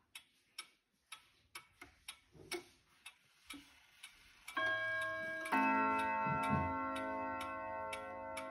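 FHS 1960 pendulum wall clock ticking about twice a second. About halfway through it strikes its bim-bam chime: two strokes a second apart, the second louder, ringing on through the ticking.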